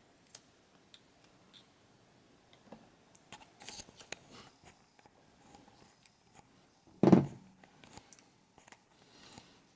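Small clicks and scrapes of computer parts being handled and fitted, with one loud thump about seven seconds in.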